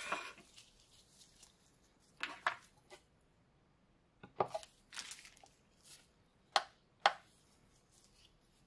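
Small items being handled and moved aside on a tabletop: scattered light knocks and clicks, with two sharp taps a half second apart near the end.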